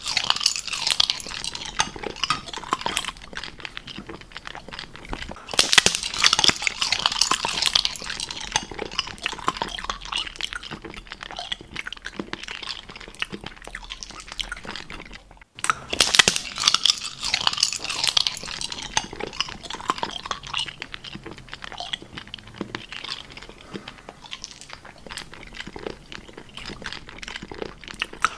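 Close-up crunchy chewing: dense crackling bites and munching. The sound cuts off abruptly about halfway through and the crunching starts again straight after.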